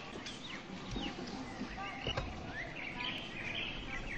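Birds chirping and calling in many short rising and falling notes over steady outdoor background noise, with one sharp knock about two seconds in.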